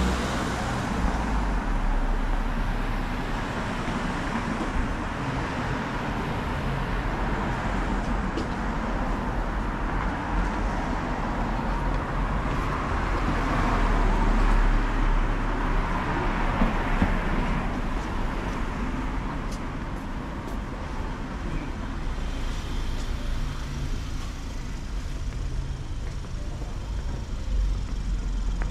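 Road traffic on a city street: vehicles running past, growing louder and then fading about halfway through, over a steady low rumble.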